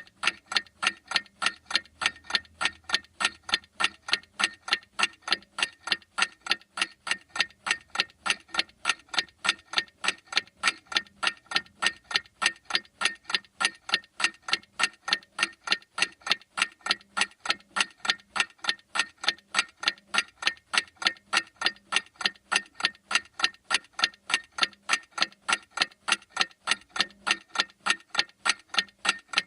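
Clock ticking steadily, with sharp, evenly spaced ticks a few times a second.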